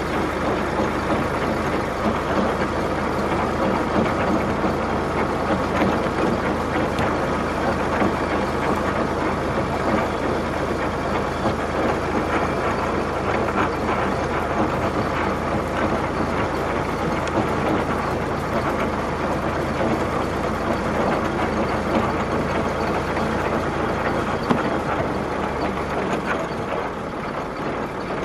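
A vehicle engine idling steadily, a little quieter near the end.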